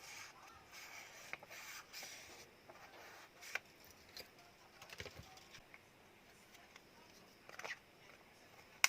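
Faint handling noises from a phone being taken apart: light scraping and rubbing, then a few small, scattered clicks of plastic and metal parts, and one sharp click near the end.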